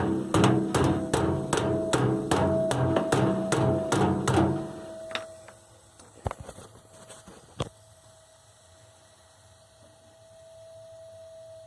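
Water heater knocking rhythmically, about two and a half knocks a second over a steady hum, the noise that stops when the burner jet is disturbed. The knocking dies away about four and a half seconds in, followed by a few single knocks and a faint hum.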